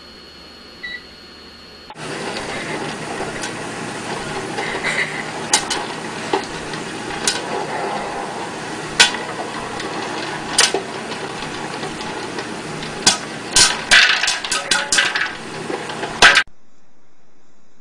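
Popcorn popping in an electric stir-type popcorn popper under a clear plastic dome: sharp single pops over a steady sizzling hiss, sparse at first and coming thick and fast for the last few seconds before cutting off.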